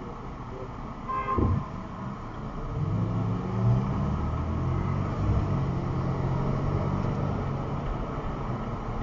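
Car engine pulling away from near standstill and running steadily as the car gathers speed, heard from inside the cabin. About a second and a half in there is one short, sharp pitched blip, the loudest moment.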